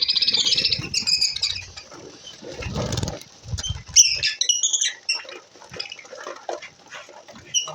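Lovebirds chattering with shrill, squeaky chirps: a rapid chatter in the first second and a half, sharper calls about four seconds in, then scattered chirps, with low fluttering rustles in between.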